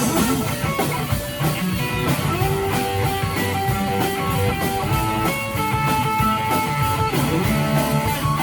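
Live rock band playing an instrumental passage: electric guitar over a drum kit, with long held notes through the middle.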